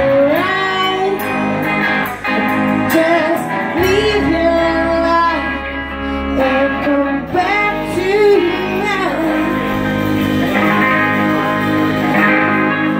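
Live rock band performing: two women singing lead and backing vocals over electric guitars and bass guitar, with a drum kit behind.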